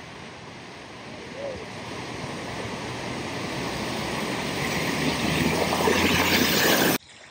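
A vehicle pushing through deep floodwater: a rush and splash of water that grows steadily louder as it comes closer, with a low engine hum under it near the end. It cuts off suddenly just before the end.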